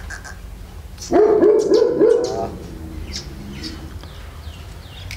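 A dog barking in a quick run of about four barks about a second in. Faint bird chirps follow.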